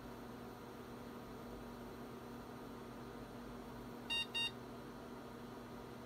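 A 386 PC's internal speaker gives two short beeps in quick succession about four seconds in, over a steady low hum. The beeps are the AMI BIOS flagging a power-on self-test error, an 'HDD controller failure'.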